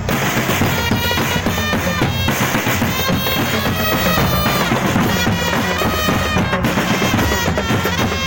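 Marching drum band playing: bass and snare drums keep a steady beat under a melody of short stepped notes on wind or melody instruments.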